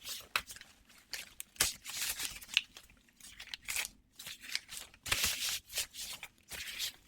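Close-miked scissors opening and closing in a run of sharp snips, with brief rasping strokes between them.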